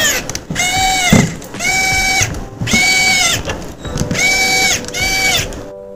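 Repeated high, bleat-like calls, about one a second and half a second each, each dropping in pitch at its end. This is a sound added to the soundtrack, not the screwdriver work.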